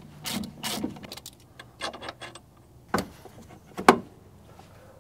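Wrench and brake caliper clanking as the caliper is unbolted and worked off the brake rotor: a few sharp metallic knocks and clacks, the loudest near the end.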